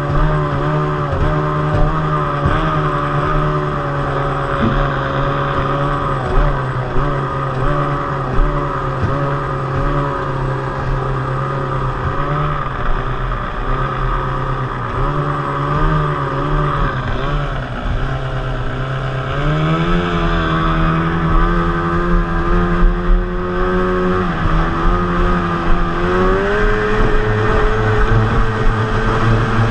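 Small racing outboard engine of a homemade Glen-L Super Spartan hydroplane running under way, with wind and water rushing past. The engine note wavers, then climbs in pitch about two-thirds of the way through and climbs again a few seconds later as the throttle is opened further.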